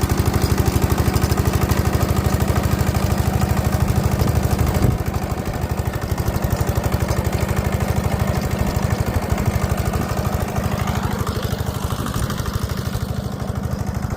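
Mini tiller's 7.5 HP diesel engine running with a steady, rapid knocking beat. It gets a little quieter about five seconds in.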